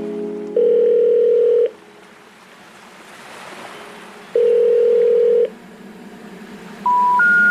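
Electronic tones: two long, steady beeps about four seconds apart with a soft hiss swelling between them, then three short beeps climbing in pitch near the end.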